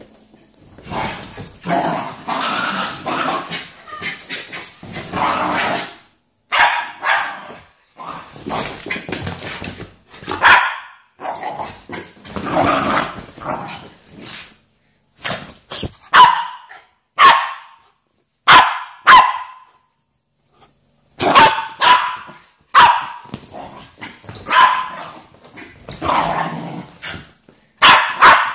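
Miniature schnauzer growling and barking in excited play. Longer rough growls fill the first half, then a run of short, sharp barks comes in quick clusters of one to three.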